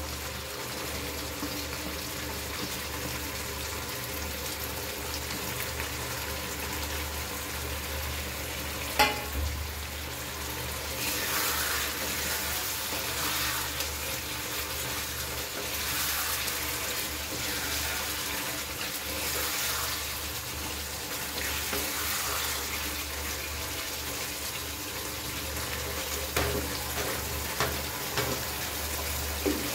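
Chicken curry sizzling in a frying pan while it is stirred with a spatula, with a sharp knock about nine seconds in and stronger hissing between about eleven and twenty-three seconds in.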